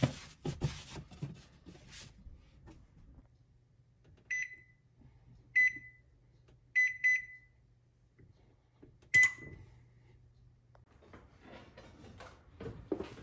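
A cloth rubbing oil over a cast iron griddle for the first two seconds, then an electric oven's keypad beeping five times as buttons are pressed to set the bake temperature. Near the end, handling noise as the oven door is pulled open.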